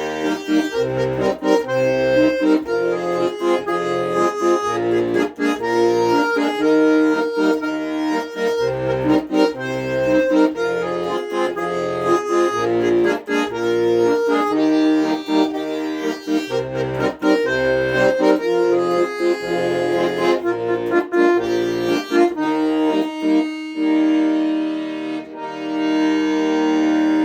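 Accordion playing an instrumental melody over a regular beat of bass notes, then settling near the end into one long held final chord.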